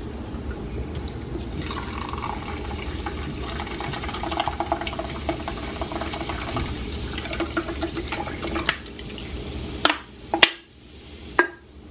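Vernors ginger ale poured from a can into a crock pot in a steady stream for several seconds, followed by a few short knocks near the end.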